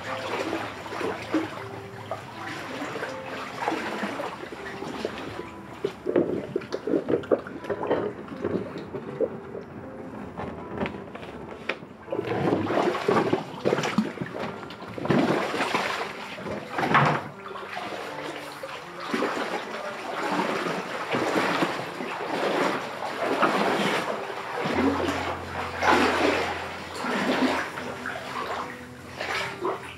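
Floodwater sloshing and splashing as someone wades through it, in a string of steps about one to two seconds apart.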